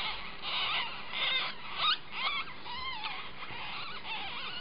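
A nine-day-old ferret kit squeaking: a string of short, high squeaks that rise and fall, about two a second, the loudest about two seconds in.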